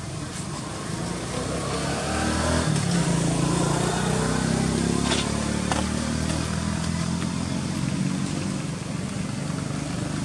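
A motor vehicle's engine running steadily, growing louder about two and a half seconds in and easing off toward the end, as if passing by.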